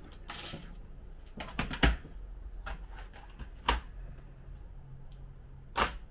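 Small plastic boxes and trays of hardware stock set down and handled on a glass-topped display counter. A brief rustle comes first, then three sharp clicks about two seconds apart, with lighter taps between.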